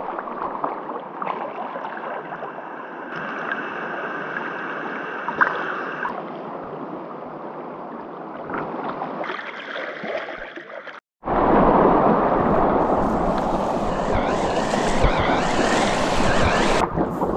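Rushing river water: a steady wash of noise that jumps louder after a sudden cut about eleven seconds in.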